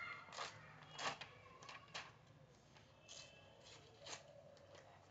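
Faint, scattered rustles and crinkles of paper being torn off and handled, a few short soft crackles spread over several seconds.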